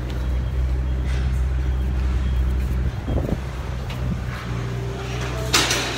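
Vehicle engine idling with a steady low hum, dipping briefly about halfway through. A short, sharp noise comes near the end.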